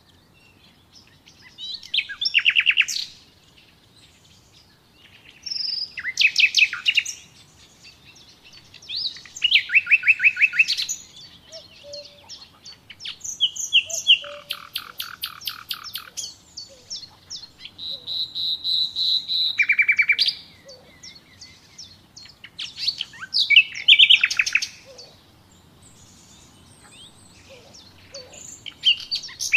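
Songbirds singing in short, rapid trilled phrases, one every two to four seconds, with quieter gaps between them.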